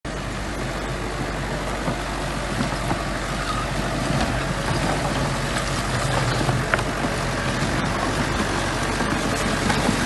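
A small bulldozer's diesel engine running steadily, with a few light clanks.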